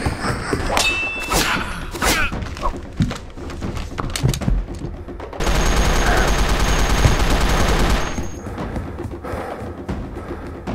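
Full-auto blaster fire: one rapid, even burst about two and a half seconds long starting about halfway through. Before it come scattered knocks and thumps.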